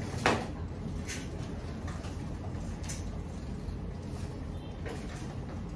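A few light clicks and knocks from hands working a combi blind's headrail and fittings, over a steady low room hum; the sharpest click comes just after the start, with fainter ones spread through.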